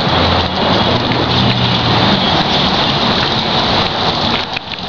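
24-volt motorized bus washing machine running along a coach: a dense, steady hiss of water spraying and splashing on the bus body, over a low motor hum. The spray drops off briefly near the end.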